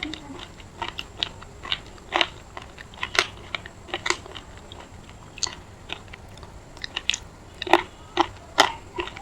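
Close-up mouth sounds of someone biting and chewing a piece of semi-wetted red edible clay, crunching it in a run of sharp, irregular crunches. The piece is hard and gritty in places.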